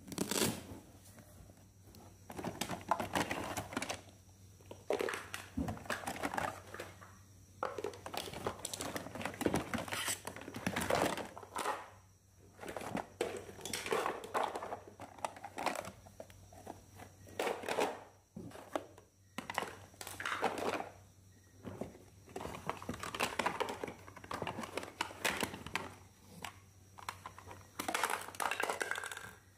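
Hands handling a fabric storage box and lifting hard plastic toy accessories out of it. Irregular rustling and crinkling comes in bursts, with light clacks and knocks of plastic.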